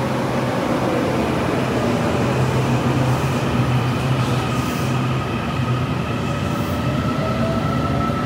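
A Taiwan Railway train running through the underground station platform, a steady rumble with a high whine, and a second whine rising in pitch near the end.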